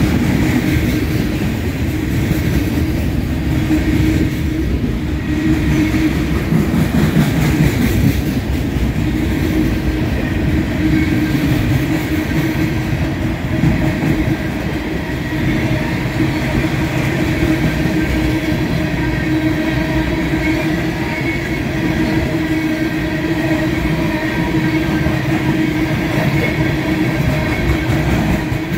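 Freight train cars (tank cars and covered hoppers) rolling past at close range: a steady, loud rumble and clatter of steel wheels on rail, with a steady ringing tone running over it.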